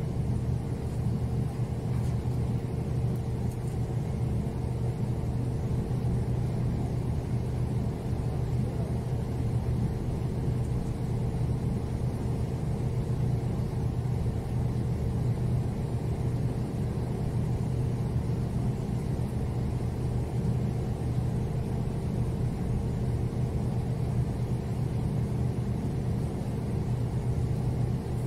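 Ship's engine running steadily: a constant low drone with a steady hum that does not change.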